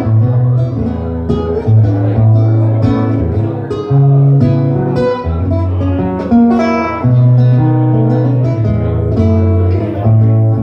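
Solo acoustic guitar played fingerstyle: plucked melody notes and chords over held bass notes, in a steady flow.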